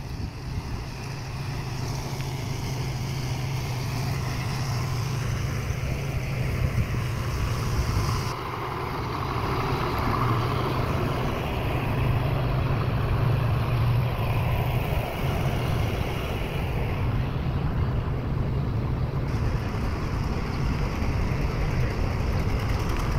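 A vehicle engine idling steadily: a constant low hum over a noisy background.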